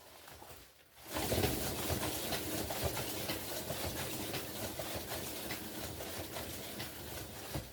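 Flat-faced hairdryer switched on about a second in, blowing air steadily with a motor hum, then switched off just before the end.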